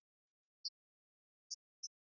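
Near silence, broken by a few brief, faint, high-pitched ticks at irregular moments.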